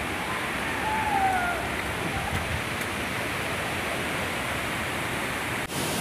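Steady rushing roar of a waterfall, with a short falling whistle-like tone about a second in.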